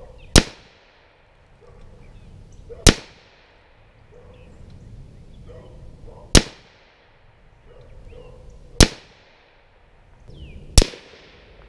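Savage A17 semi-automatic rifle firing 17 HMR rounds: five sharp shots spaced two to three and a half seconds apart, each followed by a short fading echo.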